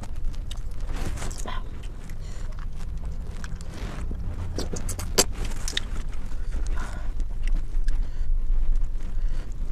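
Close-miked mukbang eating sounds: chewing and slurping of clams in sauce, with scattered sharp clicks, the loudest about five seconds in.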